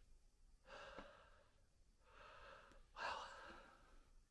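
A man breathing hard, out of breath from exertion: three soft breaths, the last the loudest.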